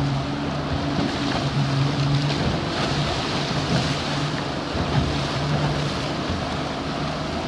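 Yamaha 200 outboard motor running under way, a low steady hum, over water rushing and splashing past the hull, with wind buffeting the microphone.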